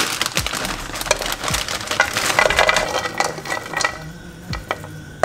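Plastic bag of broccoli florets crinkling as the florets are tipped into a pan, with a busy clatter of crackles for about the first four seconds. It goes quieter near the end as a spatula stirs the pan.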